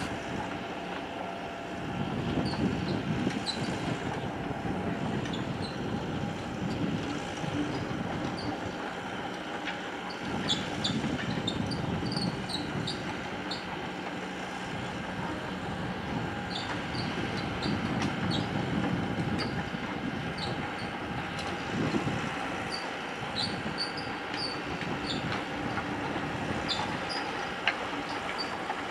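Steady, distant machinery noise from a working harbour: a low rumble that swells and fades, a faint steady whine, and scattered short high squeaks.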